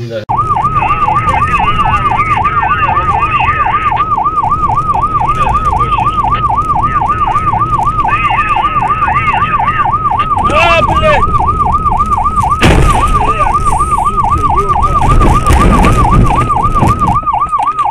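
Police car siren in a fast yelp, rising and falling about three to four times a second without a break, over engine and road noise. A single heavy thud stands out about two-thirds of the way through.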